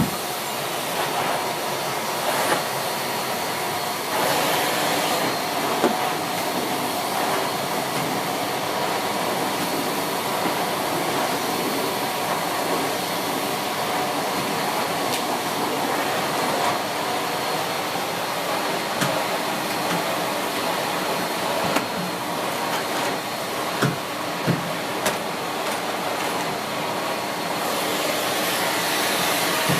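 Siemens Z6.0 Power 2500W bagged cylinder vacuum cleaner running steadily on its second suction level, its standard combination floor head pushed across carpet. A few light knocks come through, the loudest near the end.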